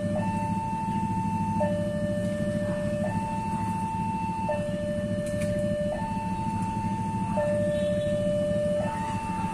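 Railway level-crossing warning alarm sounding, switching back and forth between a higher and a lower electronic tone, each held about a second and a half, over a steady low rumble.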